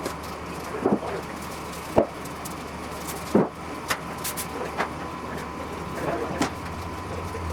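Scattered knocks and clunks of workshop items being moved around and set down, over a steady low hum.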